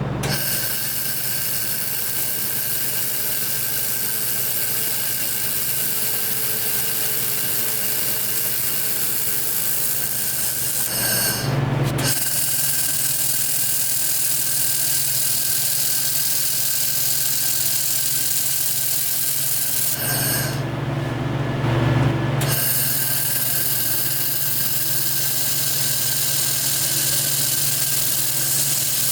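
DenaliWeld Jet 2000 handheld fiber laser welder running a weld on steel with wire feed: a steady hissing sizzle. It stops twice, about eleven seconds in and again about twenty seconds in for a couple of seconds, and a low hum remains during the gaps.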